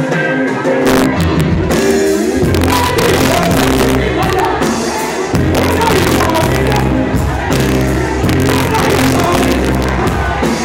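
A live reggae band playing loudly, with a singer's voice over it, recorded on a phone; the deep bass comes in about a second in.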